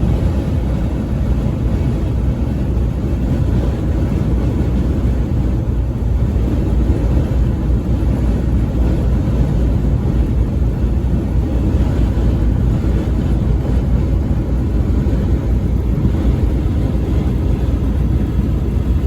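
Steady low rumble of a car driving at highway speed: tyre, engine and wind noise with no breaks or changes.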